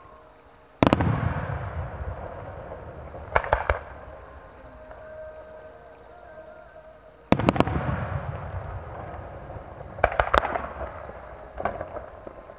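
Aerial firework shells of a starmine (rapid-fire sequence) bursting, heard from about 500 m away: sharp booms, first singly about a second in, then in quick clusters of two or three every few seconds, each trailed by a long rolling echo.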